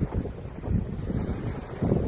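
Sea waves washing onto a beach, with wind buffeting the microphone in uneven low gusts.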